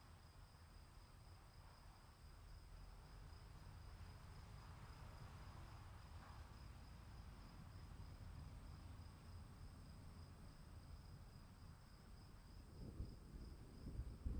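Faint afternoon-storm ambience: crickets trilling steadily, a high pulsing chorus with a second steady higher tone, over a low rumble of distant thunder that grows louder near the end.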